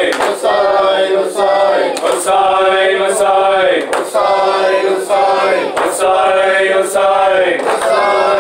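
A group of men chanting a noha (mourning lament) in unison behind a lead reciter on a microphone, with sharp chest-beating slaps (matam) keeping a beat about once a second.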